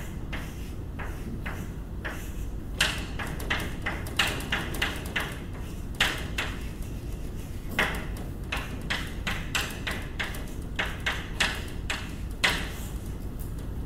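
Chalk writing on a blackboard: an irregular run of short chalk taps and scrapes as symbols are written, with a few sharper taps near the middle and shortly before the end. A steady low room hum lies underneath.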